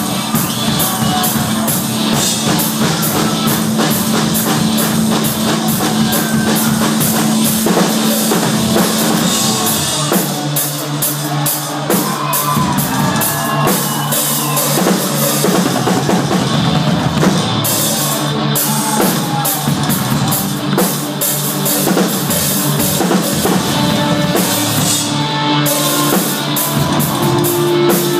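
A live heavy rock band playing loud: drum kit with evenly repeating cymbal strokes, distorted electric guitars and electric bass guitar.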